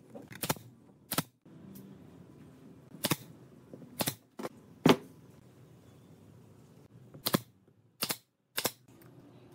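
About ten sharp wooden clacks and knocks at irregular intervals, the loudest about five seconds in: wooden moulding pieces and hand tools being set down and knocked into place on a workbench.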